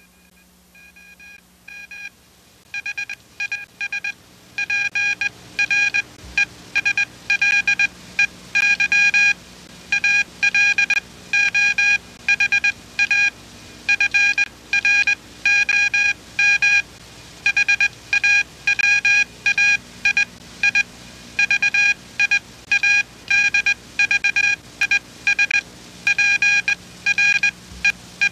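Electronic beeping: short bursts of steady-pitched beeps in an uneven, stuttering rhythm, fading in over the first few seconds and then loud. A faint low hum runs underneath.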